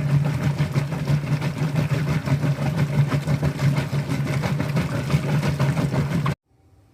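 Top-loading washing machine running, a steady motor hum under a noisy churning, which cuts off suddenly about six seconds in.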